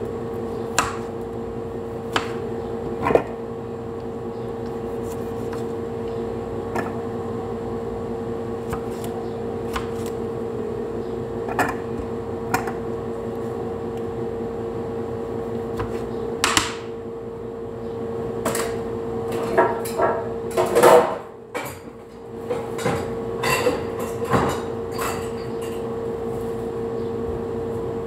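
Kitchen knife cutting tomatoes by hand, with scattered knocks and clicks of the knife and tomato pieces against the cutting board and a plastic food processor bowl, over a steady appliance hum with a constant tone. A cluster of louder knocks comes about three quarters of the way through.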